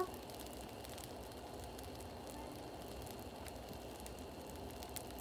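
Baghrir batter cooking in a hot nonstick frying pan: a faint, steady sizzle with scattered tiny crackles as the batter bubbles up and sets full of holes.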